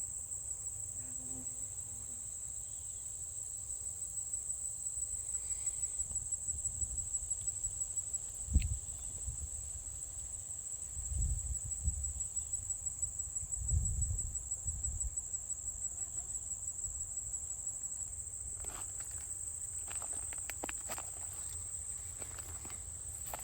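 Chorus of insects such as crickets trilling steadily at a high pitch. A few low thumps come midway, and there is some rustling near the end.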